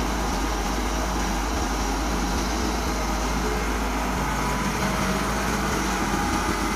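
Kobelco hydraulic crawler excavator's diesel engine running steadily close up, a constant even engine noise as the machine works.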